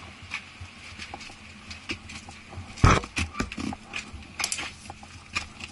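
Rustling and knocking handling noise, with one heavy thump about three seconds in, over a faint steady hum.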